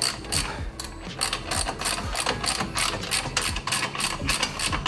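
Ratchet clicking rapidly, about six clicks a second, as a fitting on the turbo pipework is worked.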